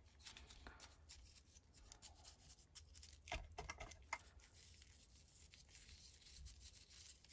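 Very quiet faint scratching and light taps of a paintbrush working resin in a small plastic cup and over a pine cone's scales. A few slightly louder taps come about three to four seconds in.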